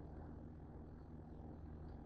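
Faint steady low hum of room tone.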